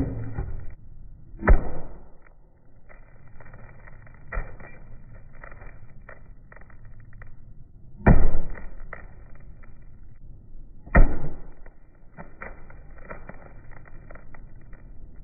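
Sledgehammer blows on an iPhone 8 Plus: three heavy strikes, about 1.5, 8 and 11 seconds in, and a lighter knock near 4.5 seconds, with crackling of broken glass and parts between them.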